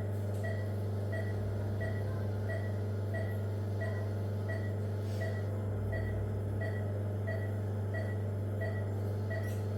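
Operating-room equipment: a steady low electrical hum with a short high beep repeating about twice a second, the regular beeping of a patient monitor.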